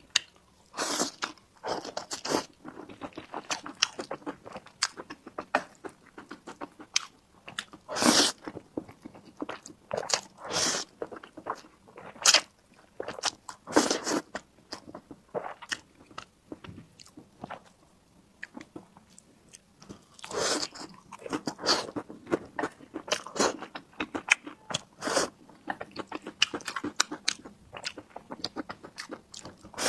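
Close-miked eating: bites and chewing, a fast, irregular run of short mouth clicks with a few louder bites spread through.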